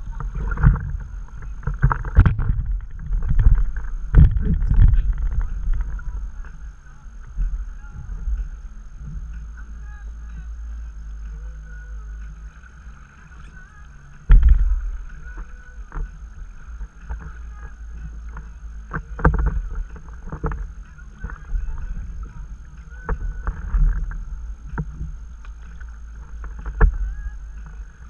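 Stand-up paddleboard being paddled: the paddle blade dipping and pulling through the water, with irregular splashes and sharp knocks against the board every couple of seconds over a steady low rumble of water.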